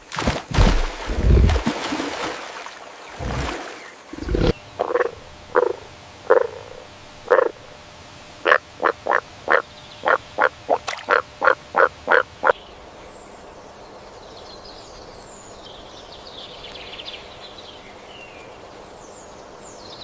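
Frog croaking: a run of short croaks, spaced out at first and then quickening to about three a second before stopping. It is preceded by a few loud, rough low bursts, and faint high chirps follow near the end.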